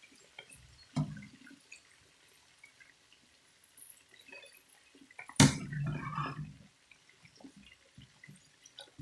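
Potato fries frying in hot oil in a pan, with faint crackling and dripping as a metal slotted spoon stirs and lifts them. A sharp knock, the spoon against the pan, comes a little past halfway, and a smaller one about a second in.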